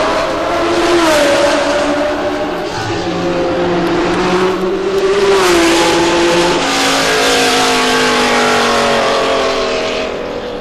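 Several 1966 Formula One racing cars at full engine noise. Their overlapping engine notes drop in pitch as the cars brake and change down for a chicane, and the sound fades slightly near the end.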